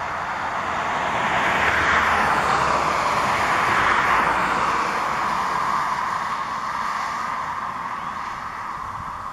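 Boeing 787-9 Dreamliner's jet engines on final approach with gear down: a steady rushing roar that swells over the first couple of seconds and then slowly eases.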